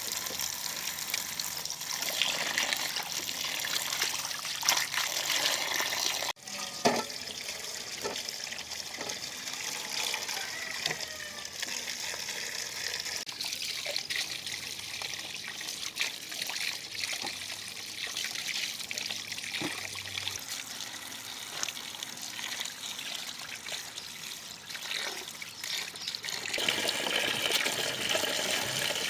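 Water running and trickling, with small knocks and clatter of handling throughout. The sound changes abruptly about six seconds in and again near the end.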